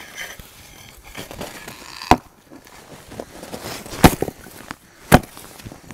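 An axe chopping into a frozen block of meat and fat: three hard strikes about 2, 4 and 5 seconds in, with lighter knocks and scraping between them.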